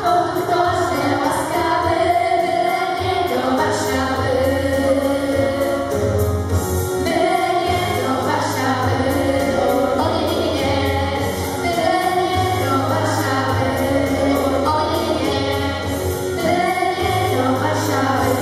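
Two girls singing a song together into handheld microphones, over a backing track with a steady bass line.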